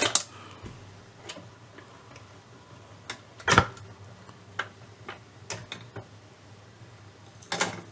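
Philips AG 1025 record changer running its change cycle, being tested after its sticking tone-arm pivot was cleaned: a series of mechanical clicks and clunks over a low steady hum, the loudest about three and a half seconds in as the single drops onto the platter, and another strong one near the end.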